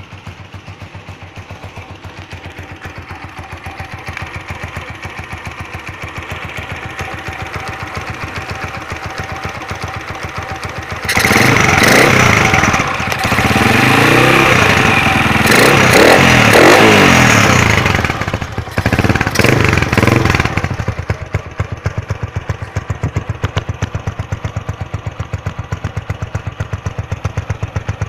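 Motoposh Typhoon 150 motorcycle engine, fitted with aftermarket cams and a CDI, idling with an even beat. About eleven seconds in it is revved hard for several seconds, blipped twice more, then drops back to idle.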